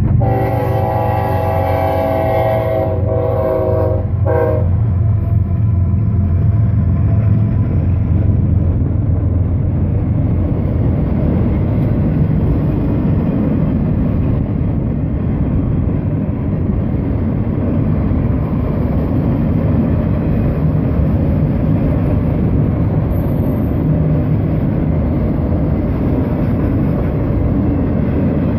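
Horn of a Florida East Coast GE ES44C4 locomotive sounding a multi-tone blast for the grade crossing, with two short breaks before it cuts off about four and a half seconds in, over the low drone of the GEVO diesel engines. Then autorack freight cars roll past with a steady rumble and wheel clatter.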